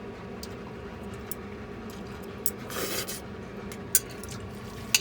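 Eating sounds: chopsticks clicking sharply against the dish a few times, with a short noisy rush about three seconds in, over a steady low hum.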